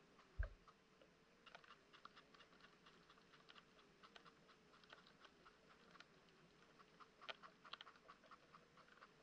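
Faint, irregular underwater clicking and ticking picked up by a GoPro in its waterproof housing about 1.5 m down in a lake, with one sharp low thump about half a second in.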